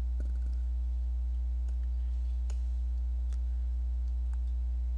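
A few faint, scattered computer keyboard-and-mouse clicks over a steady, low electrical hum that is the loudest thing throughout.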